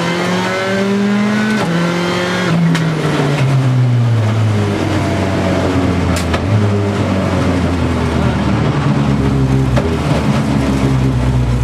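Skoda Fabia WRC rally car's turbocharged four-cylinder engine heard from inside the cockpit, revving up hard, then dropping in pitch as the driver lifts off, before running at lower, steadier revs. Two sharp cracks cut through, about three seconds in and again about six seconds in.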